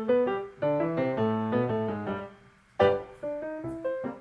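Background piano music: a light melody of quick single notes, with a brief pause a little past halfway before it picks up again.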